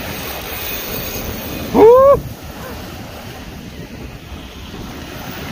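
Surf washing up the beach with wind buffeting the microphone, and a short rising shout about two seconds in.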